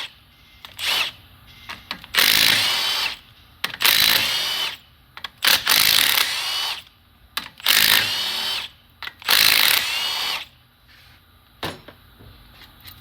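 Power tool with a socket spinning the bolts out of a Montero/Pajero front hub, about six short bursts with the motor's pitch rising at each start, then quiet near the end apart from a single click.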